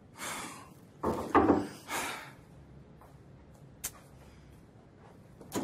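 Quiet handling sounds: a few soft rustles in the first couple of seconds, then two sharp clicks, the second near the end.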